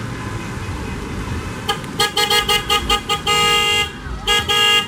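Car horn honking: a string of quick short toots starting a little under two seconds in, then a longer blast, then two more short toots near the end, over the noise of cars passing on a wet road.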